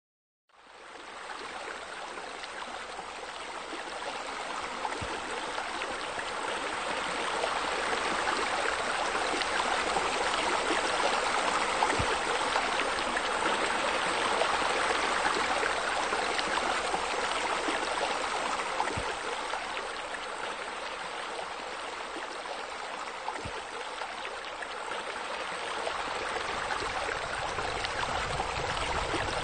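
Steady rush of running, splashing water, like a pool waterfall and fountain jets. It fades in over the first few seconds and then holds, swelling gently.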